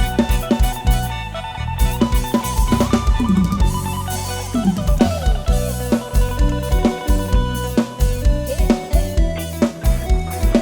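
Instrumental break of a live Isan pop band on a sound-truck rig: a drum kit keeps a steady beat under heavy bass, with held keyboard and guitar notes and a few sliding bass notes, without vocals.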